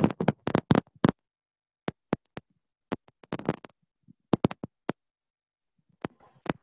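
Irregular short clicks and crackles, in clusters, with dead silence between them: a video call's audio cutting in and out while a finger covers or brushes the phone's microphone.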